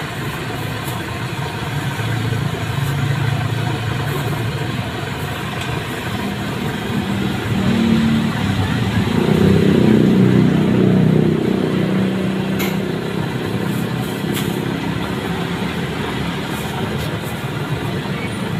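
Steady street traffic with motor vehicles passing, swelling loudest around nine to eleven seconds in, under faint background voices.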